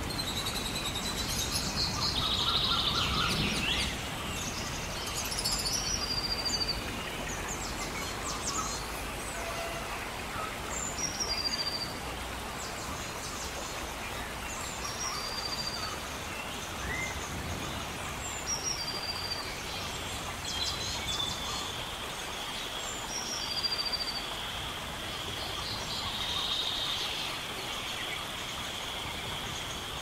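Birds calling over a steady hiss of rain, with one bird repeating the same short chirping call every few seconds.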